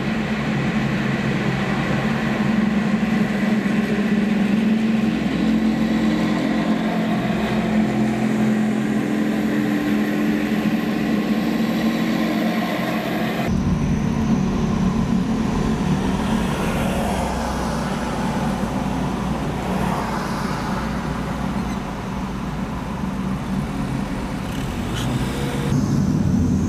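Engines and road noise of heavy military vehicles, trucks and tanks, driving past in a convoy: a steady low engine note over traffic noise. The sound changes abruptly about halfway through.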